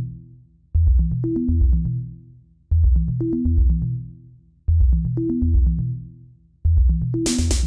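Background electronic music: a deep synth bass riff that restarts about every two seconds and fades away each time, with a drum-machine beat and hi-hats coming in near the end.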